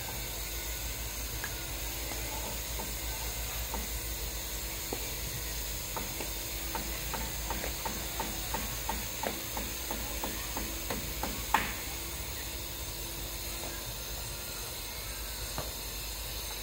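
Steady outdoor background hiss, with a run of quick, evenly spaced knocks, about three a second, for several seconds in the middle, ending in one sharper knock.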